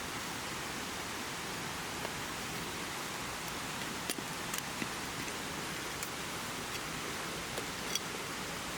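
Steady hiss of water, with a few faint ticks around the middle and near the end.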